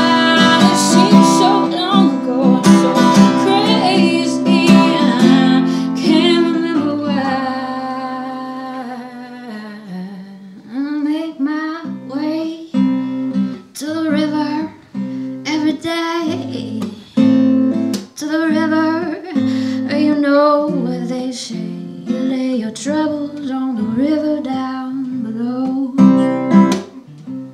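A folk song performed live: a woman singing to acoustic guitar. The guitar is strummed full for the first several seconds and dies away around eight to ten seconds in, then the song goes on more softly with single picked notes under the melody.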